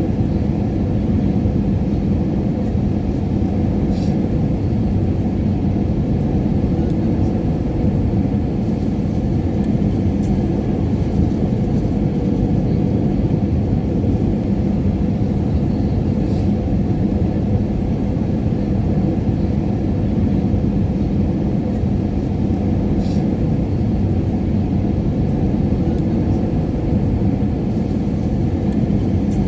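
Airliner cabin noise in flight: a steady low rumble of engines and airflow with a faint steady hum, unchanging throughout, with a few faint ticks.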